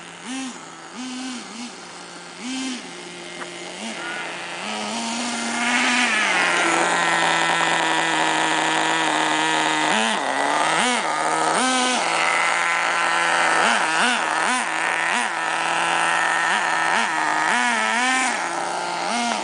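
The small nitro glow engine of a Behemoth 1:10 4WD RC monster truck, still being broken in. It idles with short throttle blips at first, then runs louder and higher from about six seconds in, with quick revs up and down as the truck is driven.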